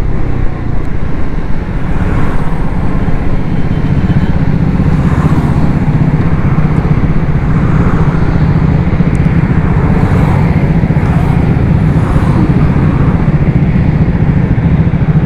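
Triumph Scrambler 400 X's single-cylinder engine running while riding along a highway, mixed with wind and road noise on the rider's camera. The sound is loud and steady throughout.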